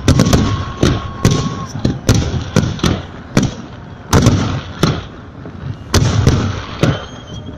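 Fireworks salute going off: a rapid, irregular run of sharp bangs, about a dozen in the space of several seconds.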